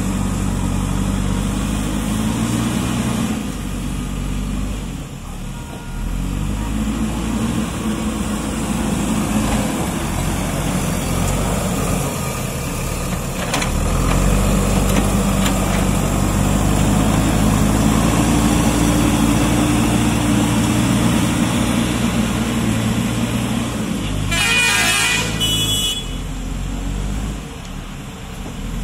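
JCB 3DX backhoe loader's diesel engine running and working as it moves earth, its note rising and falling with the load and running louder through the middle stretch. A brief high-pitched sound cuts in about three-quarters of the way through.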